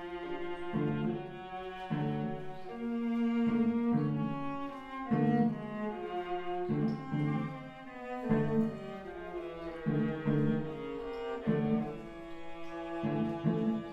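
Music on bowed strings: low cello-range notes played in short repeated strokes, about one a second, under held higher notes.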